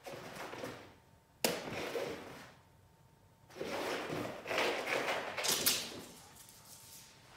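A Brittany dog racing around, its paws scrabbling and skidding on a rug and hardwood floor in three bursts, with a sharp thump about a second and a half in.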